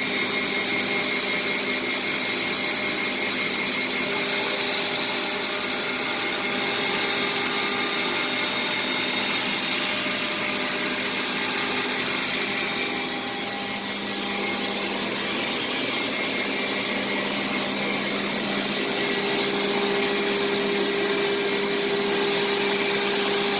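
CNC router spindle running with a steady high whine as its bit cuts plastic sheet, swelling louder briefly twice.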